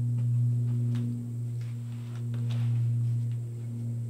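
Engine of a Norwood LumberMate LM29 portable bandsaw mill running on steadily as a low, even hum between cuts, with a few light knocks.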